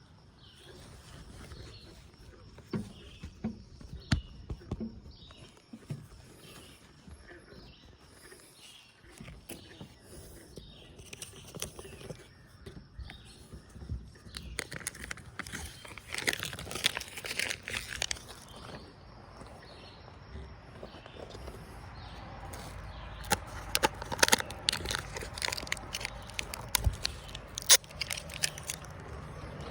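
Handling sounds of a hand repair job on an RV awning: scattered clicks and taps, with two longer stretches of crinkling and scraping from about halfway in and again near the end, over outdoor ambience.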